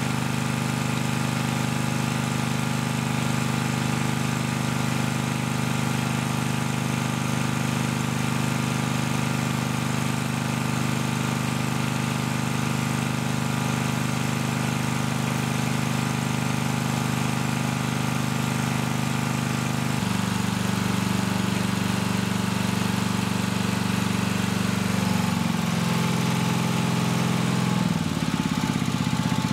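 Pump motor running steadily as it drives liquid through a Liquid Controls M-7-1 flow meter and a master meter under calibration. Its running note changes abruptly about two-thirds through and shifts again near the end.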